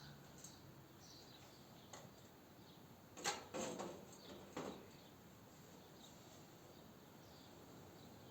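Near silence broken by a few light knocks and clicks about three to five seconds in, the sound of the custom PC case's cover being handled and fitted back on.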